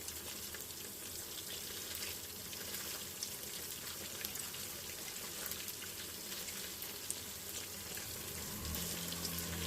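Chicken wings frying in hot oil: a steady sizzle with many small crackles and pops. A low hum comes in near the end.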